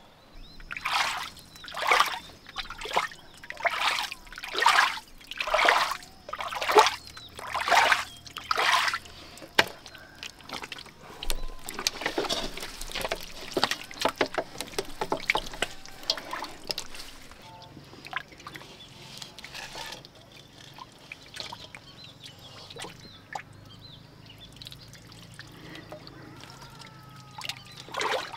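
Muddy water splashing as hands grope through a flooded mud pit for fish: about ten loud splashes, roughly one a second, then a stretch of steady sloshing, then quieter trickling and dripping.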